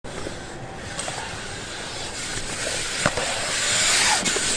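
BMX bike tyres rolling on a concrete skatepark bowl, a steady rush that grows louder as the rider comes close. One sharp knock about three seconds in.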